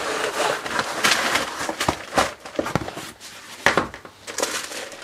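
Cardboard mailer and plastic wrapping being handled and unpacked on a wooden workbench: rustling and crinkling with sharp crackles and clicks, in two busier spells at the start and a little past halfway.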